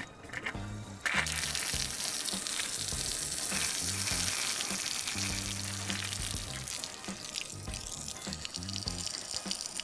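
Water rushing steadily, starting suddenly about a second in, over background music with a plodding bass line.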